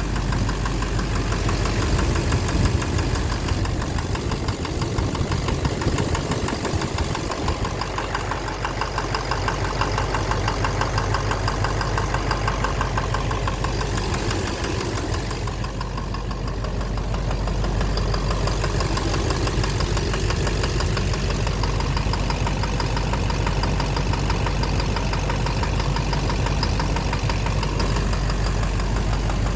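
Duramax LMM 6.6-litre V8 turbo-diesel idling steadily with a fast, regular knock. The owner is trying to pin the knock down as an injector, a cracked flexplate or the bottom end.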